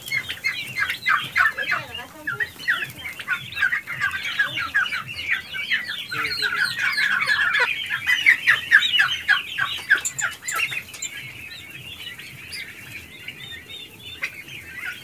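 A flock of three-month-old turkey poults calling together: many short, high calls overlapping into a dense chorus, busiest in the middle and thinning out over the last few seconds.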